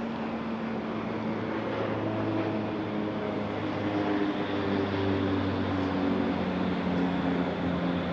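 Hum of a passing engine, its pitch drifting and shifting, over a steady background rush; it swells slightly about halfway through.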